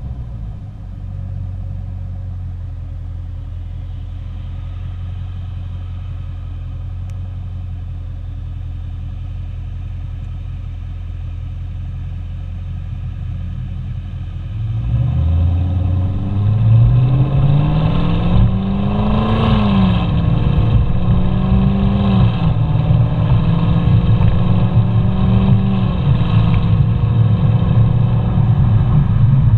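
Exhaust of a 2021 Camaro SS 1LE's V8 with the NPP performance exhaust, holding a steady low note, then about halfway through growing louder as the revs climb, dip back twice and settle at a higher, steady note.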